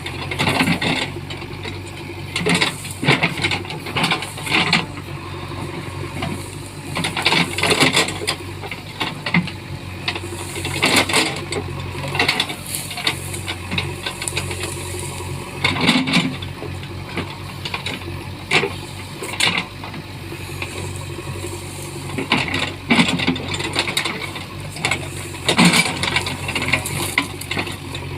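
JCB backhoe loader's diesel engine running steadily while it works, with repeated bouts of metallic clattering and rattling every second or two.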